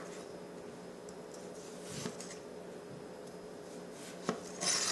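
Chef's knife cutting through a cucumber and knocking on the cutting board: a soft knock about two seconds in, then a sharper knock near the end followed by a brief slicing scrape.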